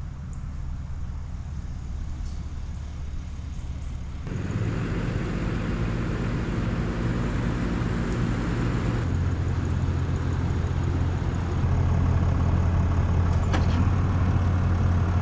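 Pickup truck engine running at low revs while maneuvering, with a steady low hum. It grows louder and fuller about four seconds in, strengthens again around nine seconds, and cuts off abruptly at the end.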